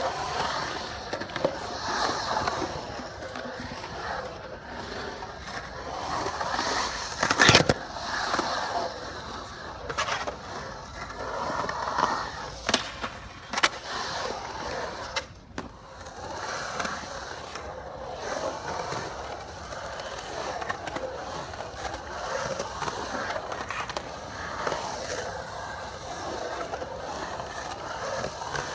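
Skateboard wheels rolling through a concrete bowl, a continuous rolling rumble with sharp clacks and knocks every few seconds. The loudest clack comes about seven and a half seconds in.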